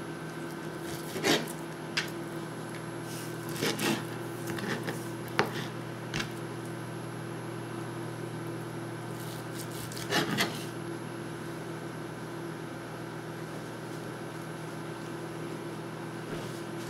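Kitchen knife tapping and scraping on a plastic cutting board while cutting venison steak into cubes: a few scattered knocks, the loudest about a second in, near four seconds and about ten seconds in. A steady low hum runs underneath.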